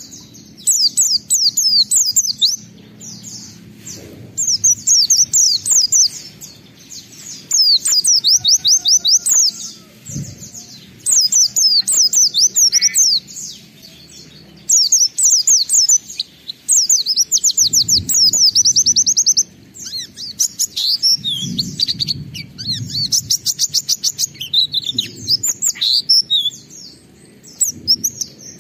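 White-eye (pleci) in full song: bouts of rapid, high-pitched chirps and fast trills, each lasting one to three seconds, with short pauses between them.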